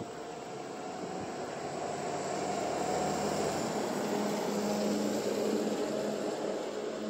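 A vehicle passing: engine and road noise growing louder, peaking about five seconds in, then fading.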